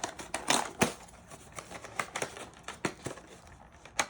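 Trading card mini box and foil packs being handled and opened: irregular crinkles and small clicks of cardboard and foil wrapping.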